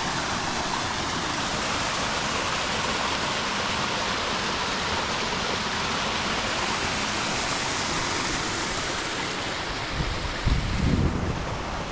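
Steady rush of a mountain stream. Near the end, wind buffets the microphone with low rumbling thumps.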